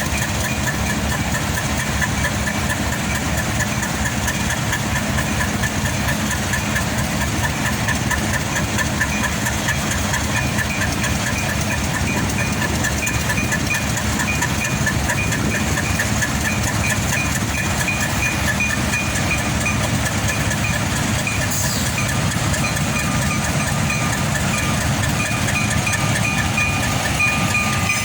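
Freight train with diesel locomotive running steadily: a dense low engine rumble with a repeating high-pitched ticking over it.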